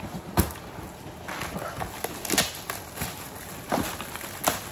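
Gift packaging being opened by hand: crinkling plastic wrapping with scattered clicks and knocks as the package is handled.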